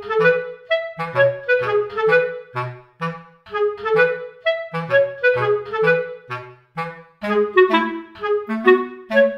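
Background music: a bouncy tune of short, detached notes over a lower bass line, several notes a second.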